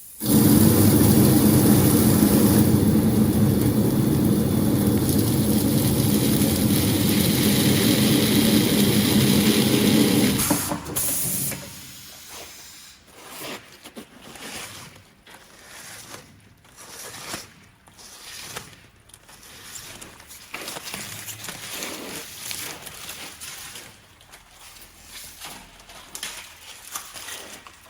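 Sanding belt slitting machine running with a loud, steady rushing noise and hiss; it stops abruptly about ten seconds in. After it stops there are quieter, irregular clicks and rustling.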